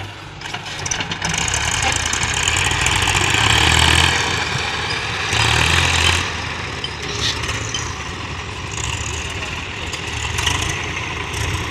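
Heavy vehicle engine running, with a low rumble and broad mechanical noise that swells twice, about three to four seconds in and again around six seconds.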